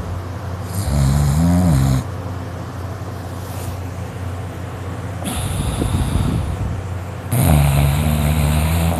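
A boy snoring loudly in his sleep: three long snores, each a second or two long, the first and last with a low buzzing drone that wavers in pitch.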